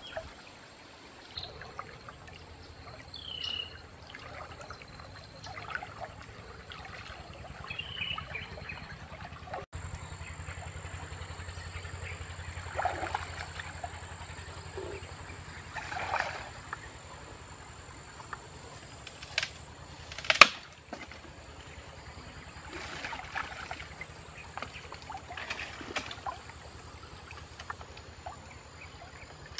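Water sloshing and trickling around a person wading through a shallow river. In the second half come sharp snaps and cracks of dry branches, the loudest about two-thirds of the way through.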